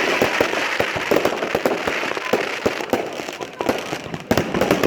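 Fireworks going off: many bangs and crackles in quick succession over a steady hiss, with a louder cluster of bangs near the end.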